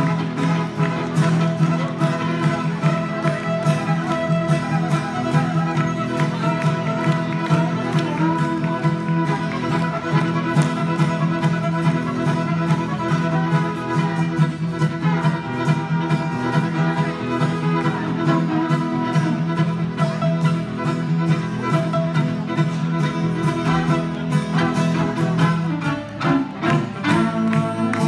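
Two fiddles bowing a tune together over acoustic guitar accompaniment.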